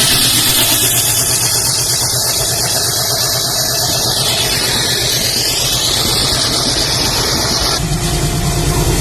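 An Indian Railways diesel locomotive and its train running past: the diesel engine throbs low and fast under a loud high-pitched metallic squeal from the running gear. The sound changes abruptly near the end.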